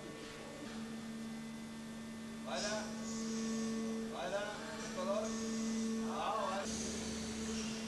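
Hydraulic power units of a foundry moulding machine humming steadily with a constant tone, with short hisses and other brief sounds of the machine over it from a few seconds in.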